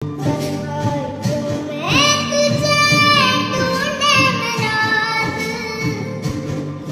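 Song played as a ringtone: a high-pitched singing voice over music. About two seconds in the voice slides up to a long high note, which falls back a little over a second later.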